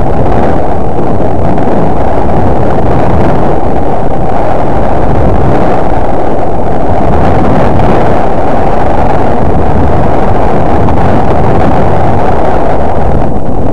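Loud, steady wind buffeting on the camera's microphone while riding downhill on a snowboard, running at full level so the recording overloads.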